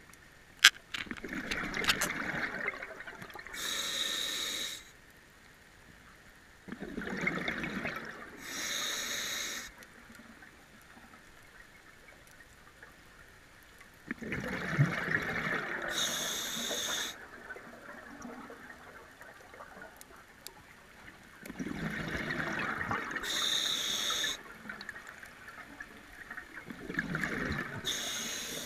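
Scuba diver breathing through a regulator underwater, five breaths: each is a burst of exhaled bubbles followed by the higher hiss of the inhale, about every 6 to 7 seconds. A sharp click comes about a second in.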